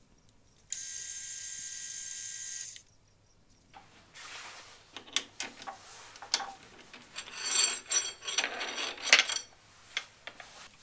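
A steady high-pitched buzz for about two seconds, starting and stopping abruptly. Then irregular metallic clinking, clattering and scraping of steel parts being handled around the lathe chuck, busiest near the end.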